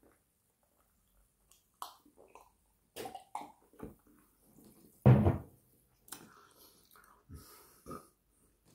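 A person gulping a drink from a glass, a few short swallowing sounds, then a single loud thump about five seconds in, followed by softer handling and mouth sounds.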